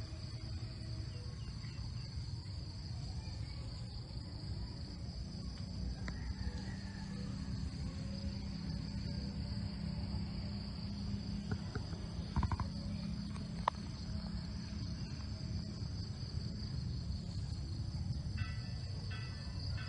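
Insects droning steadily at a high pitch over a low rumble, with two sharp clicks a little past the middle.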